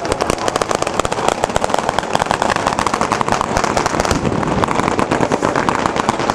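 A rapid, unbroken crackle of sharp bangs, many a second, like a string of firecrackers or a burst of automatic gunfire.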